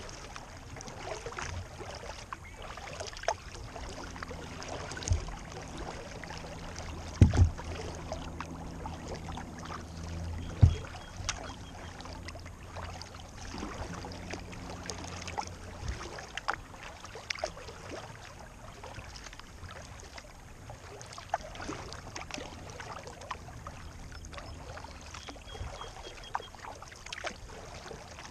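Small waves lapping and slapping against a kayak's hull as it moves across a lake, with a few sharp knocks, the loudest a pair about seven seconds in and another near eleven seconds. A low steady hum sits underneath for several seconds in the middle.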